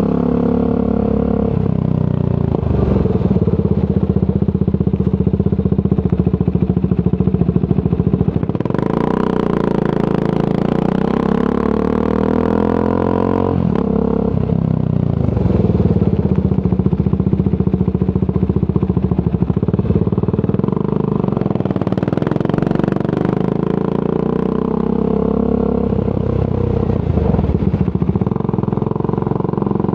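Triumph Scrambler 400 X single-cylinder engine running through a Zard aftermarket exhaust while riding. The revs climb from about nine seconds in and drop sharply partway through, then keep rising and falling with the throttle.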